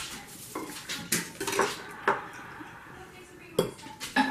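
A metal fork clinking and scraping against a dinner plate as a piece of grilled chicken is cut with it: about half a dozen sharp clinks.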